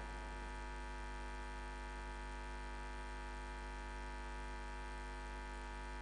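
Steady electrical mains hum with a buzzing edge on the live commentary audio feed, unchanging throughout.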